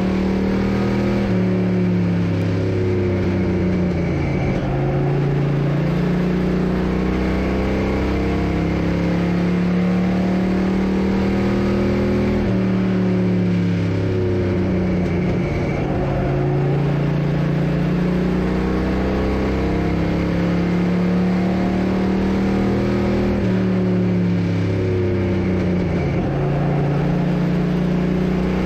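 Race car engine heard from inside the car while it laps a short oval. The engine note climbs along the straights and drops as the driver lifts for the turns, in a cycle that repeats about every eleven seconds.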